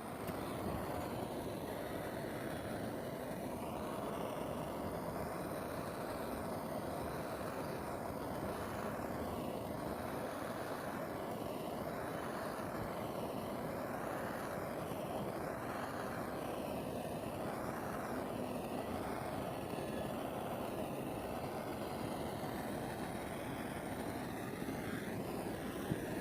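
Torch flame roaring steadily while charring wood, with a faint waver that comes and goes about every second and a half.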